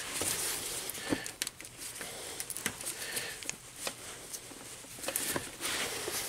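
Scattered light clicks and rustling as a gloved hand works hose clamp pliers onto a radiator hose clamp among the engine hoses.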